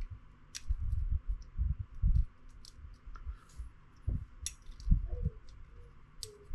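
Scattered light metal clicks and short handling knocks from working a small hollow steel pin out of an ATV's one-way clutch.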